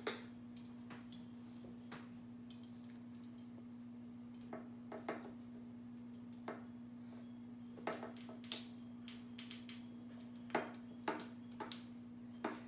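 Scattered small plastic clicks and taps as aquarium tubing, a U-tube and hose clamps are handled and fitted, coming quicker over the last few seconds, over a steady low hum.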